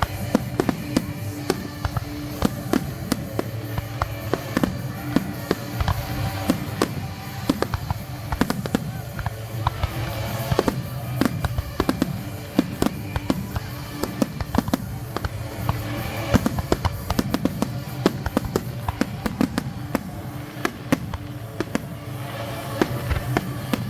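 Fireworks going off in quick succession, dense bangs and crackling throughout, with music playing steadily underneath.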